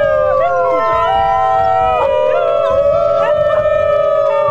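New Guinea singing dogs howling in chorus: several overlapping long, held, tuneful notes that slide and step up and down in pitch.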